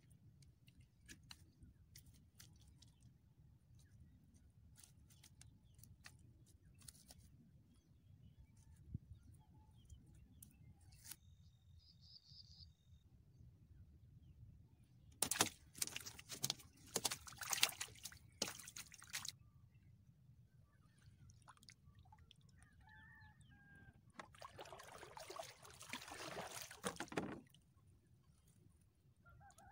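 A fishing net being hauled up out of the water by hand: water dripping and trickling off the mesh, with two louder spells of splashing, about halfway through and again near the end, as netted fish thrash at the surface.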